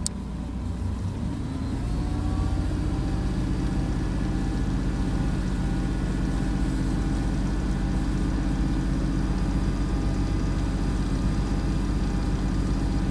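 An engine running steadily. Its pitch and loudness rise slightly over the first couple of seconds, then it holds an even hum.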